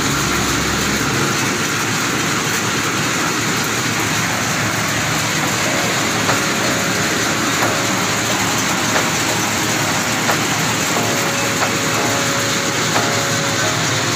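Groundnut shelling machine running with a steady, dense rattling noise. From about six seconds in, a sharp click sounds about every second and a quarter.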